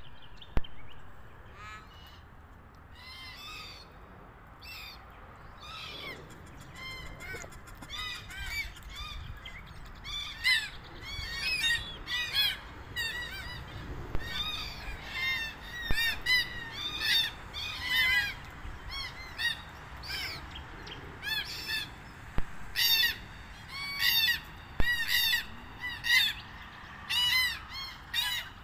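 Red-tailed black cockatoos giving short, harsh calls over and over, sparse at first and coming thick and fast from about ten seconds in. A single sharp click sounds just after the start.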